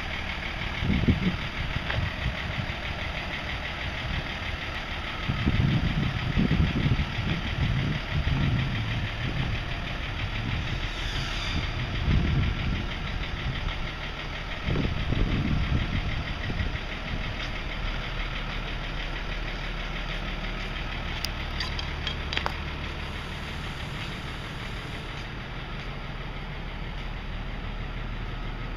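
Refrigerated box truck running at a steady idle, with irregular low rumbles in the first half.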